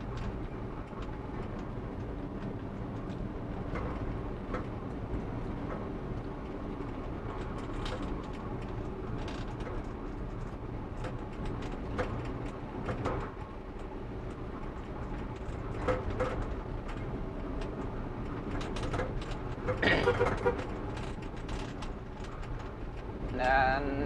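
A vehicle running steadily along the road, with a constant low engine and road hum and a few small clicks. A brief voice rises over it about 20 seconds in.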